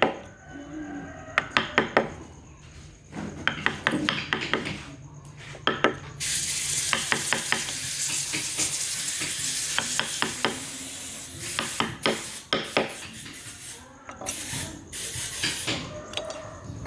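Hand wood-carving tools working wood: a run of sharp taps and clicks, then about eight seconds of steady scratchy hiss from scraping the wood, then more taps near the end.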